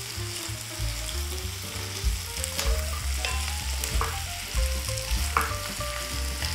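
Carrots, onions and mushrooms sizzling in butter in a heavy black pot, stirred with a wooden spatula that knocks and scrapes against the pot every second or so. The vegetables are being sautéed until they are coated in the fat.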